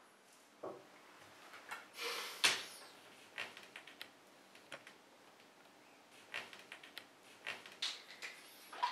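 Small objects handled on a bathroom counter: scattered light clicks, knocks and rustles, the sharpest knock about two and a half seconds in and a quick run of clicks near the end.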